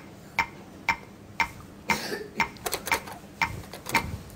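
Electronic game ticks, one each time the Tetris-style block steps down the grid, about two a second. A few other short, louder noises fall between them, around two seconds in and again near the end.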